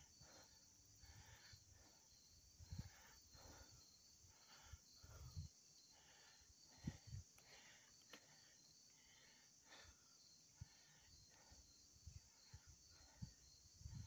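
Near silence with a faint, steady, high chirping of insects, pulsing evenly, and a few soft low thumps scattered through.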